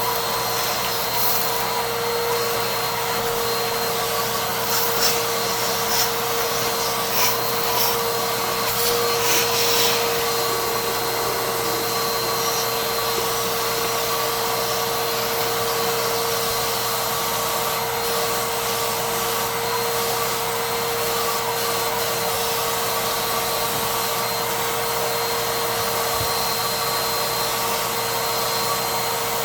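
Hoover WindTunnel upright vacuum running steadily through its hose with a constant motor whine, sucking the dirt out of a Bissell vacuum's dust bin. Short scratchy crackles come through in the first ten seconds or so.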